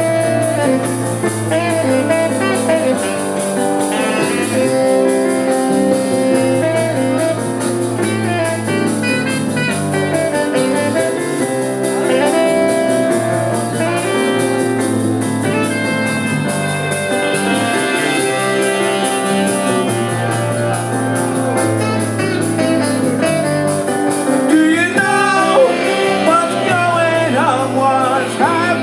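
Rock band playing live with guitar and a horn section, with a sung voice coming in near the end.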